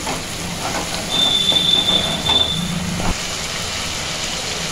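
Onion paste sizzling in hot oil in a nonstick pan as it is stirred with a wooden spatula, frying toward golden brown. A steady high squeal sounds about a second in and lasts about a second and a half.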